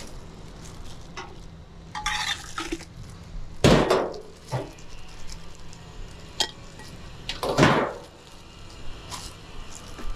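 Bowls, pots and utensils clattering as food is dished up: a series of clinks and knocks, the loudest about four seconds and seven and a half seconds in.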